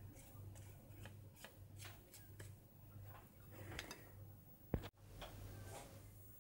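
Faint light taps and rustles of a pastry brush dabbing egg wash onto filo börek rolls on a metal baking tray, about two a second, over a steady low hum. A single sharp click just under five seconds in.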